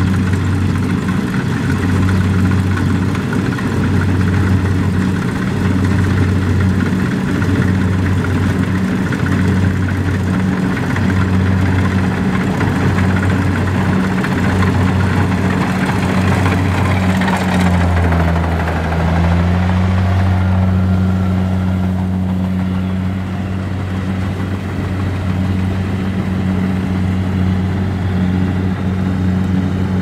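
Kubota DC-70 Plus rice combine harvester running steadily while it cuts standing rice: a diesel engine's low, steady hum under busy mechanical noise. About eighteen seconds in, the engine note dips briefly, then settles again.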